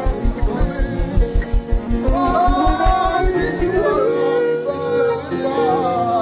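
Live worship band music: a fast, steady bass beat under held and wavering melodic lines. The beat drops out about four seconds in, leaving the sustained tones.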